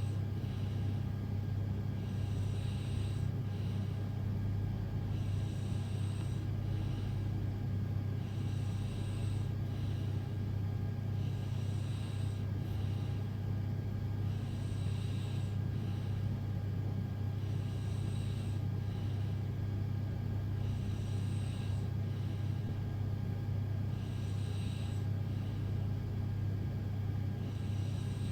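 A sleeping person breathing, a soft breathy rush about every three seconds, over a steady low hum.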